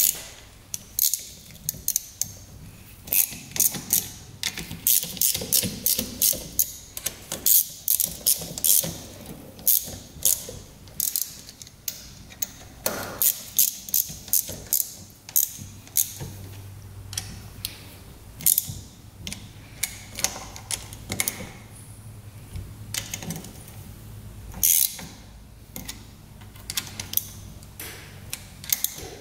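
Hand ratchet clicking in irregular runs of quick clicks as fasteners on a small motorcycle engine's cylinder head are turned.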